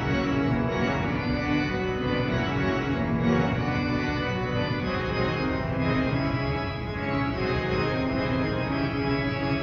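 Cathedral pipe organ playing, many held notes sounding together, with the chord changing every second or so.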